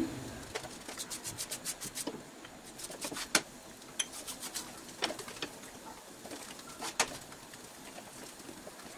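Soft, irregular clicks and taps from a roti cooking on an oiled nonstick pan while a wooden spatula works it, with a quick run of ticks in the first two seconds and then single clicks every second or two over a faint hiss.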